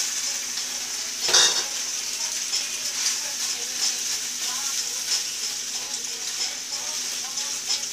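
Penne pasta sizzling in a skillet of melted butter and sautéed bell peppers as it is stirred with a silicone spatula, a steady frying hiss. A short clatter sounds about a second and a half in.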